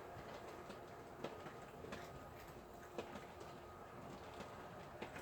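Quiet room tone with a faint steady hum and a few faint, isolated light clicks or taps.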